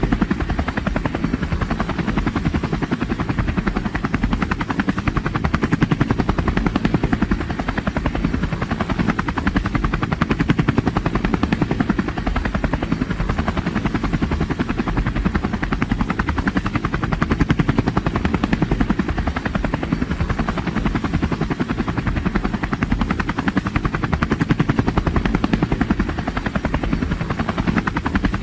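Wind buffeting the microphone of a camera riding along on a moving e-bike: a loud, steady, low fluttering rumble.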